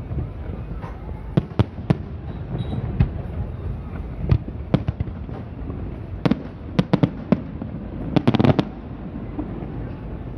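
Fireworks display: scattered sharp bangs of bursting shells, with a quick run of rapid cracks about eight seconds in, over a steady low background din.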